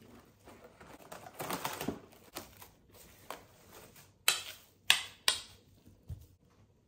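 Plastic cling wrap being torn from its box and pressed around a bowl's rim, crinkling and crackling, with three sharp crackles a little over four seconds in.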